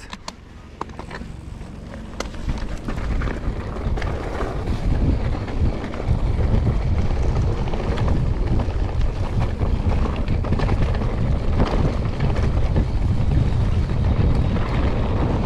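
Wind buffeting the microphone over the rumble and rattle of a mountain bike rolling down a dirt trail, with scattered knocks from the bumps. It builds over the first few seconds as the bike picks up speed, then holds.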